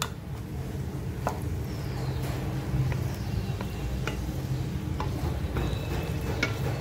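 Sliced onions frying in oil in a large metal pot, stirred with a spoon that scrapes and clicks against the pan several times, over a steady low hum.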